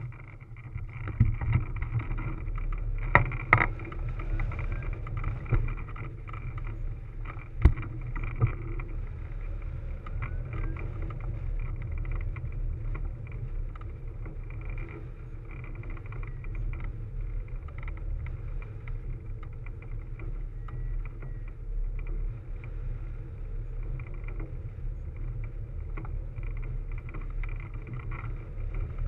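Steady wind rush and buffeting on a hang glider's wing-mounted camera as the glider launches off the hill and flies. A few sharp knocks and thumps come in the first eight seconds or so, during the launch run.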